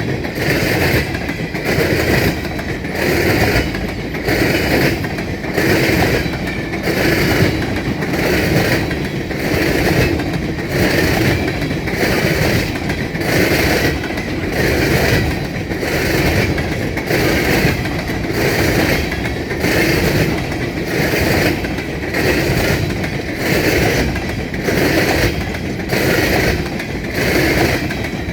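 Empty coal hopper cars of a freight train rolling past, their wheels clattering over the rails in an even rhythm of a bit more than one beat a second.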